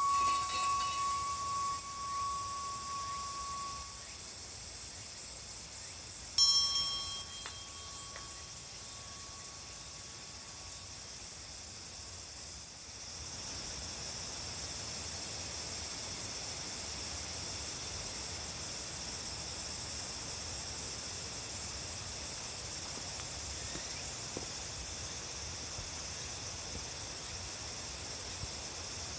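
A bell-like chime struck twice, about six seconds apart, each note ringing out and fading over several seconds. Under it runs a steady high insect drone.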